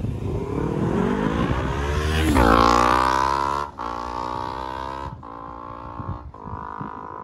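Honda CBR250RR MC51's parallel-twin engine through a Moriwaki muffler with SP Tadao Power Box exhaust pipe, accelerating hard with a rising pitch. It then shifts up three times, about a second and a half apart, and grows fainter as the bike rides away.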